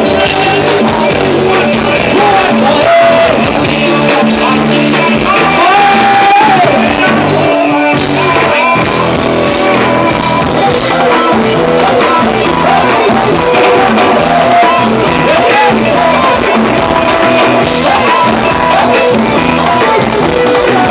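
A live Thai ramwong band playing, with a melody sung or played over a steady dance beat.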